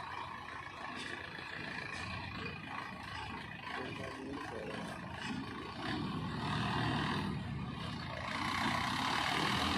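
Heavy diesel machinery running at work, a steady mechanical din that grows louder from about six seconds in.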